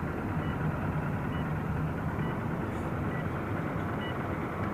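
Car engine and road noise heard from inside the cabin while driving, a steady low hum, with faint short high beeps about once a second.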